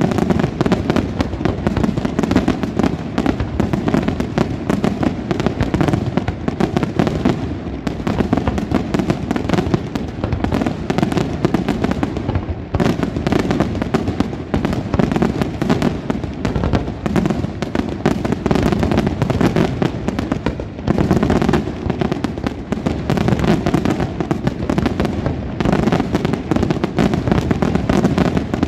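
Aerial firework shells bursting in rapid, overlapping succession: a dense, continuous barrage of bangs with no real pauses.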